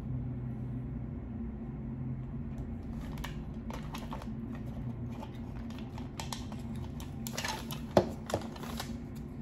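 Hands handling scripture cards: small rustles and light clicks, a brief burst of rustling, then two sharp taps close together near the end. A steady low hum sits underneath.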